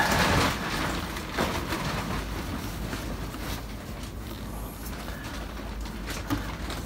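Rubber fuel hose rubbing and scraping as it is pushed and twisted onto the barbed fitting of a fuel-water separator. A loud scuffing burst comes at the start and a shorter one about a second and a half in, with a small click near the end.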